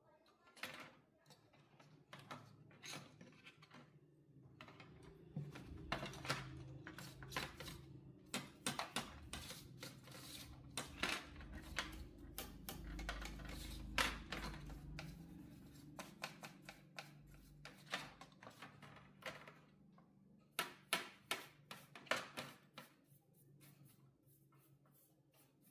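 Irregular light clicks and taps, some in quick clusters, with a low hum rising in the middle stretch and fading again.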